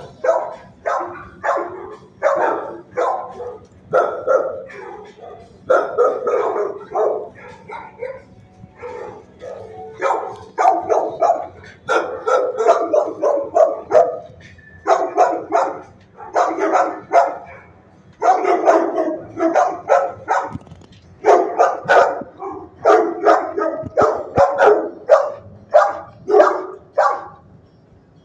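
Dogs in shelter kennels barking over and over, the barks coming in quick runs of several a second with short pauses between.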